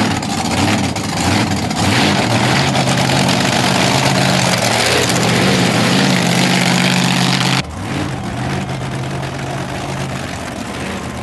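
Monster truck engine running loud and rough, its pitch rising and falling with the throttle. About seven and a half seconds in, it drops suddenly to a quieter, steadier engine sound.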